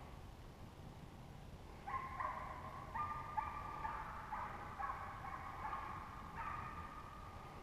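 A pack of deer-hunting hounds baying in long, drawn-out overlapping bawls, heard at a distance. The bawls grow louder and more frequent about two seconds in. This is trailing voice, the sign of dogs running a freshly jumped deer.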